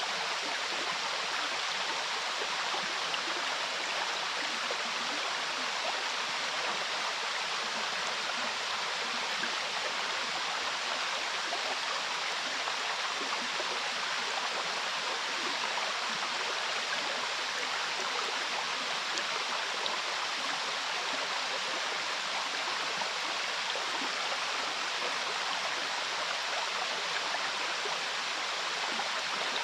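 Mountain river water rushing close by together with a waterfall, in one steady, unbroken rush.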